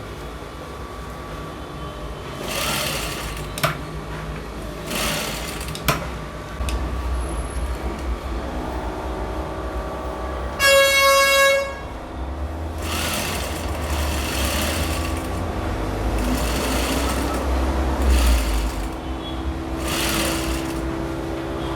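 Sewing machine stitching in short runs with pauses, and a vehicle horn honking once for about a second near the middle.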